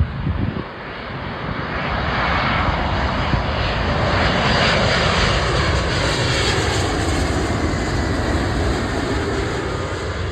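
Jet airliner passing close by, its engine noise swelling to a peak in the middle and easing off again, with a pitch that falls as it goes past.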